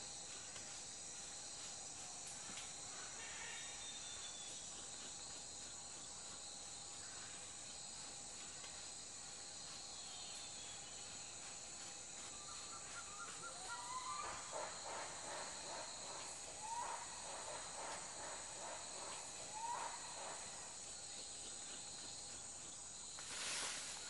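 Steady high insect chirring, with a run of soft clicks and a few short calls from gang-gang cockatoos starting about halfway through.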